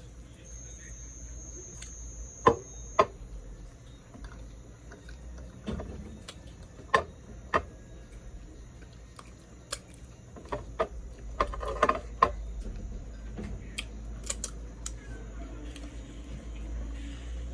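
Close-miked eating sounds: chewing with a string of sharp wet mouth clicks and smacks, loudest in a dense cluster about twelve seconds in, over a low steady hum. A faint high-pitched steady tone is heard in the first few seconds.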